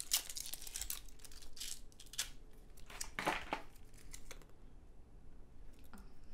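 Two fortune cookies being broken open in the hands, crackling and crinkling as they snap and the paper fortunes are pulled out. The loudest burst comes about three seconds in, and it dies away to a few faint clicks after about four and a half seconds.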